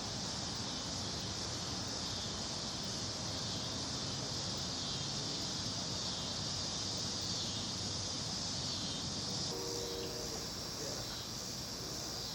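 Insects buzzing in a steady, high, even drone, with a low outdoor rumble beneath.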